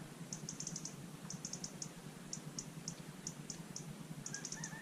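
Faint chirping of a cricket: short high-pitched chirps, each a quick group of three to six pulses, repeating every half second to a second over a steady low hum.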